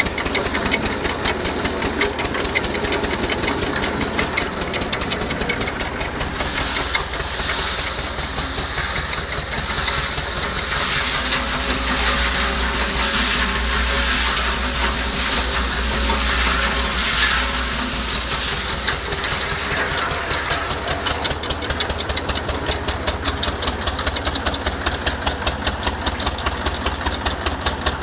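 Lawrence Edwards cement mixer's small engine running steadily with a regular chugging beat, the drum turning. For a stretch in the middle the beat blurs into a steadier low hum with more hiss.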